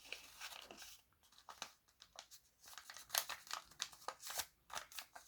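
Colored origami paper crinkling and rustling in short, irregular crackles as it is creased and pressed flat by fingers during a squash fold.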